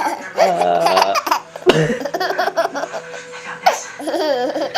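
Baby laughing in repeated short bursts, set off by coughing.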